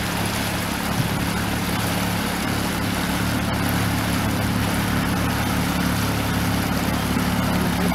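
Suzuki 20 hp outboard motor on a small inflatable tender running steadily under way, a constant low engine hum with a hiss of water over it.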